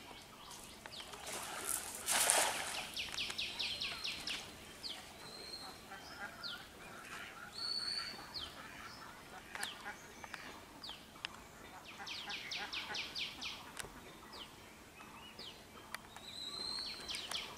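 A cast net lands on pond water about two seconds in with a brief, loud splash. Birds call around it: two rapid runs of high chattering notes and scattered short chirps.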